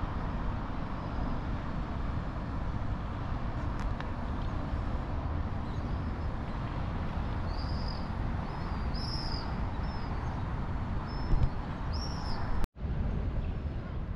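Outdoor city ambience: a steady low rumble of distant road traffic, with a few short bird chirps in the second half. The sound drops out for an instant near the end.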